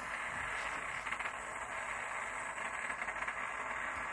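Small butane gas burner in a model Rider-Ericsson hot-air engine's firebox hissing steadily with faint irregular ticks, warming the engine before it is started.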